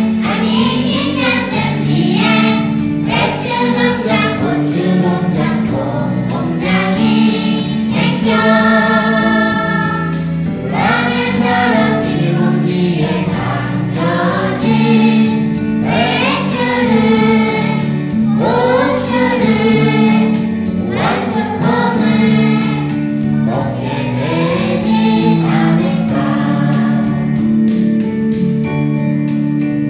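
Children's choir singing a song in Korean together over a steady instrumental accompaniment.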